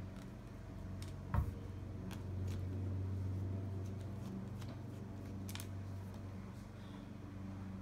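Small screwdriver backing screws out of a laptop screen's mounting corners: light clicks and scrapes of metal on metal, with a sharper click about a second and a half in and another past the halfway point, over a steady low hum.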